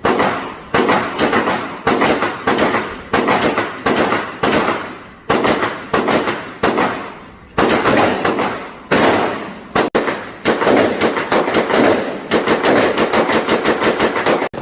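A long run of gunshots, each with a sharp crack and a decaying echo. They come about two to three a second, then faster and closer together in the last few seconds.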